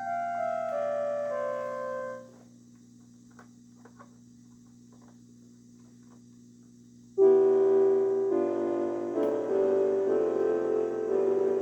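Electronic keyboard playing held, piano-like notes: a short run stepping downward that stops about two seconds in, a quiet gap with a few faint clicks, then louder sustained notes and chords from about seven seconds in.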